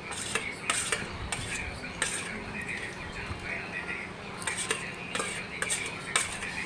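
Steel spoon scraping and clinking against a stainless steel plate, gathering up leftover food in a run of short, irregular scrapes and clicks.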